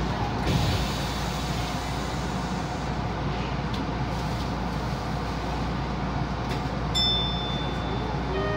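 Tokyo Metro 1000 series subway train running through a tunnel, heard from inside the front car: a steady, even rumble of the running gear. A brief high tone sounds about seven seconds in.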